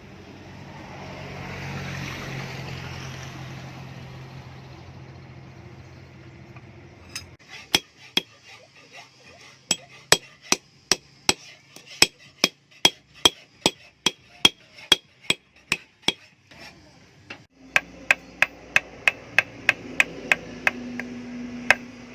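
A low steady mechanical hum for about seven seconds, with a swell of noise early on. Then a long series of sharp ringing knocks, about two a second, pauses briefly and resumes a little faster near the end, as of repeated hammer blows on metal.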